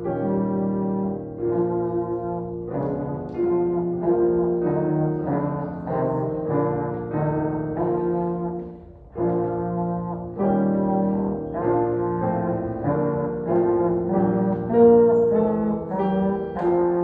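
Trombone playing a melody of held notes over digital piano accompaniment. The music stops briefly about nine seconds in, then carries on.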